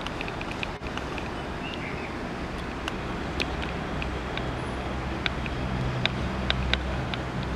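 Steady outdoor background noise, a rumble with a low hum that grows stronger about halfway through. Scattered short, sharp ticks sit over it.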